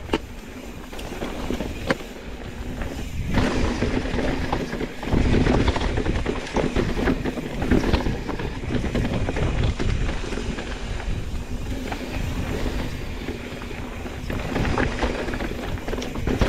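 Mountain bike rolling down a rocky trail: a continuous rumble of tyres over rock, broken by frequent clattering knocks and rattles from the bike.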